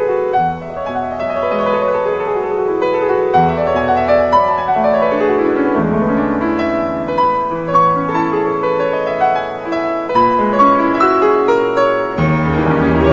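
Background piano music: a solo piano playing flowing runs of notes, rising and falling. Near the end the music grows fuller and louder.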